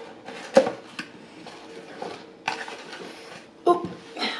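Cardboard Big Mac clamshell boxes being handled and opened: a sharp tap about half a second in, a stretch of papery rustling and scraping about two and a half seconds in, and a few more taps near the end, over a faint steady hum.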